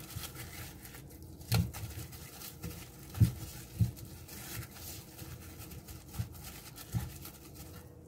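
A hand mixing seasoned raw salmon fillets in a glass bowl: soft wet squishing and dabbing with several irregular dull thumps, the loudest just over three seconds in.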